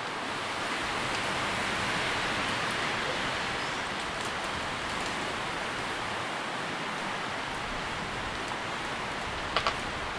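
Tree leaves rustling in the wind, a steady hiss that swells slightly about two seconds in. Two quick ticks sound close together near the end.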